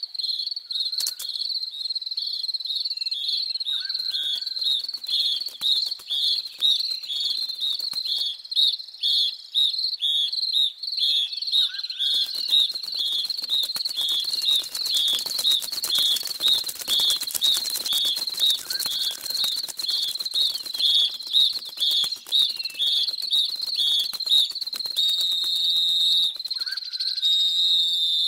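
Cricket chirping steadily, about three high chirps a second, with a faint patter of ticks through the middle and a short falling squeak near the end.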